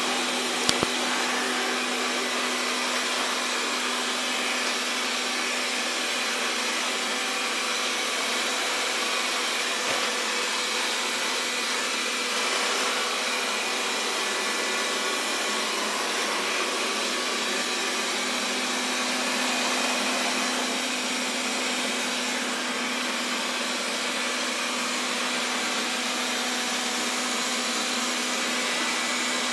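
Xiaomi Mi Robot Vacuum (Mijia) running, its suction fan giving a steady whirr with a constant hum. A brief sharp double knock about a second in, and a fainter knock later.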